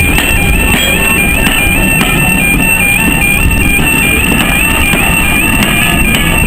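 Level crossing warning alarm sounding a two-tone warble, switching between two pitches about twice a second without a break, over the low rumble of railway coaches passing.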